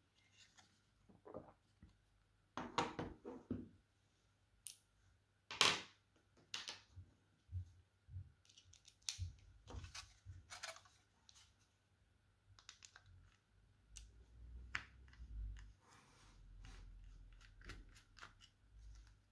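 Plastic shell and parts of a Microsoft Bluetooth mouse being handled and worked with a small screwdriver: irregular sharp plastic clicks, scrapes and light knocks. There is a quick rattle of several clicks about three seconds in, and the loudest single click comes a little after five seconds.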